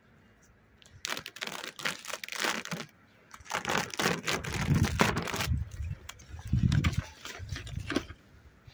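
Clear plastic foil crinkling and rustling as it is peeled off the top bars of a beehive, in two spells about a second in and again around three and a half seconds in. A few low bumps follow near the end.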